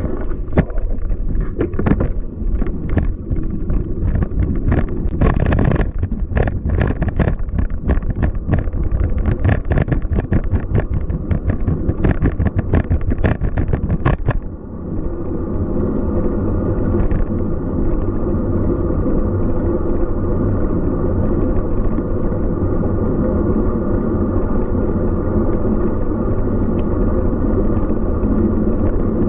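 Road noise from a Scott Speedster CX 20 road bike rolling through city streets. For about the first half, a fast run of rattles and knocks sits over a heavy rumble. After that it settles into a steadier rumble and hum.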